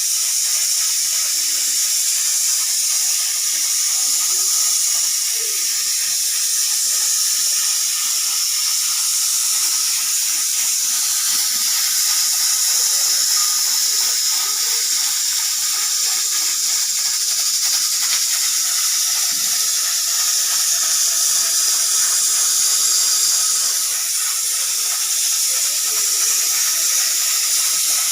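Pressure cooker hissing steadily as steam escapes, with no whistle blowing. It is the sound of a cooker whose whistle is not going off.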